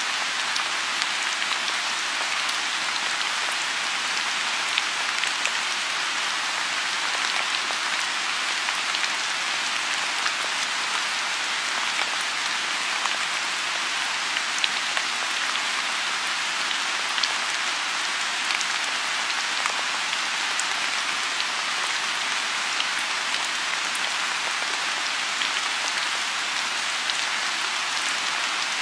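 Steady rain falling on a lotus pond: a constant, even hiss with many small individual drop ticks scattered through it.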